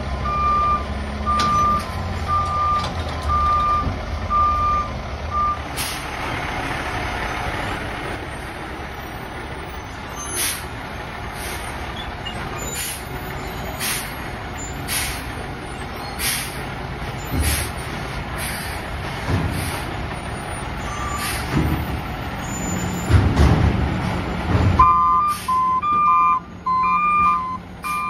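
Heil front-loading garbage truck reversing, its backup alarm beeping about one and a half times a second for the first five seconds. The truck's engine then runs on with a string of short, sharp knocks and hisses. About 25 seconds in, the backup beeping starts again, now with a second, slightly lower beeper alternating with the first.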